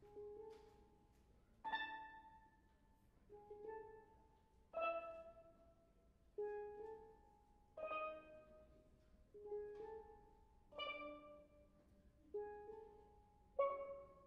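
Steelband playing a soft, slow passage on steel pans: a struck chord or pair of notes about every one and a half seconds, each ringing and fading before the next, with no drums.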